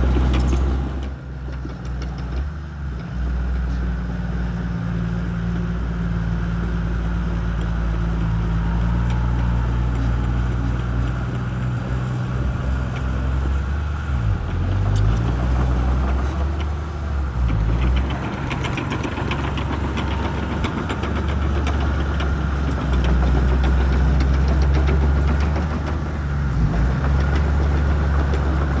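Shantui bulldozer's diesel engine running steadily under working load, its low note dipping briefly a second or two in and wavering about halfway through.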